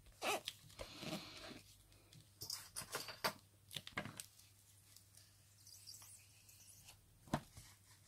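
Hands rubbing and pressing glued paper flat, with soft paper rustles and scrapes and a few light clicks and taps as a plastic ruler is laid down and pressed along the paper's edge. The sounds come mostly in the first half, with one sharp click near the end.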